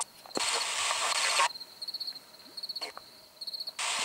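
Bursts of hissing static from a handheld ghost-hunting device: one lasting just over a second, then another starting near the end. Crickets chirp in short, evenly pulsed trills.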